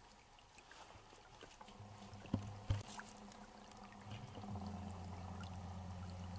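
Small creek trickling faintly over shallow stones, with two soft knocks a couple of seconds in and a low steady hum from about halfway.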